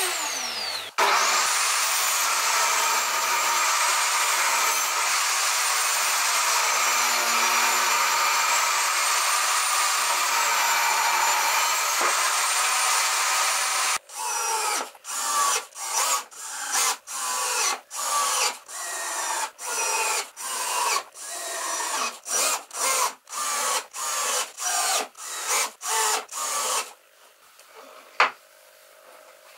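A random orbital sander winds down, starts again and runs steadily on the pine panel for about thirteen seconds. Then a cordless drill-driver drives screws into the hinges in a run of about twenty short bursts, followed by a single knock near the end.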